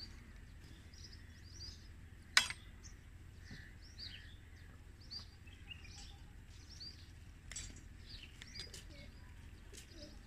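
Small birds chirping on and off throughout, faint. A single sharp click stands out about two seconds in, with a few fainter clicks later.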